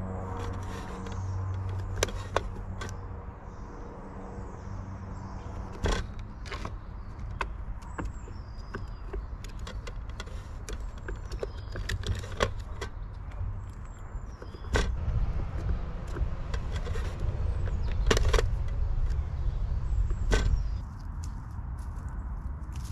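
Garden ambience: a low rumble like a passing motor vehicle, louder in the second half, with scattered sharp knocks and clicks and a few faint bird chirps.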